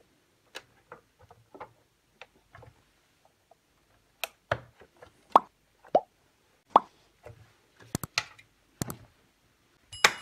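Cover plate of a Clatronic KM2718 stand mixer's gear housing being handled and pressed into place by hand: a series of irregular sharp clicks and knocks, faint at first and louder from about four seconds in.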